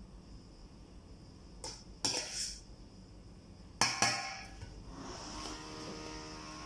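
Metal serving spoon clinking and scraping against a stainless steel pot while scooping rice, with sharp clinks about two and four seconds in.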